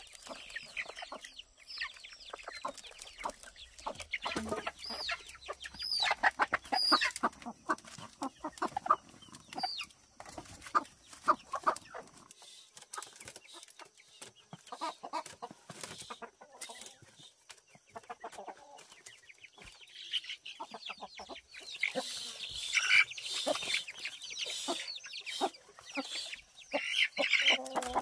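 Chickens clucking and squawking inside woven bamboo carry-cages, with rustling and clicking of the bamboo as the cages are lifted and handled.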